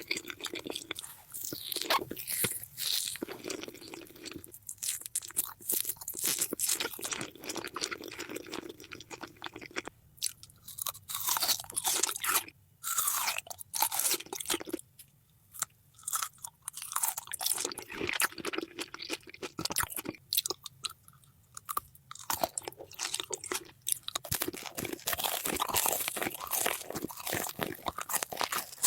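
Close-miked biting and chewing of crunchy food, with many sharp crunches and wet chewing, broken by a few brief quieter pauses.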